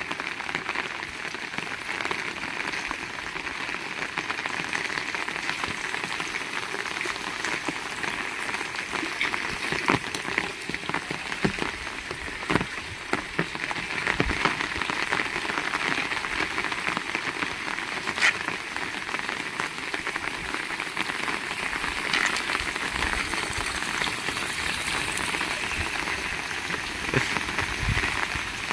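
Heavy rain falling steadily as a dense, even hiss, with scattered sharp taps here and there.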